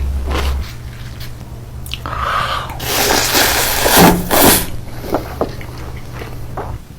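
Close-miked eating: several bites and bursts of chewing about two to four and a half seconds in, then a few sharp clicks, over a steady low hum.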